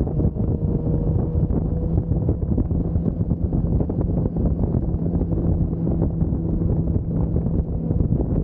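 Sport motorcycle engine running at a steady road speed, largely buried under heavy wind buffeting on the microphone.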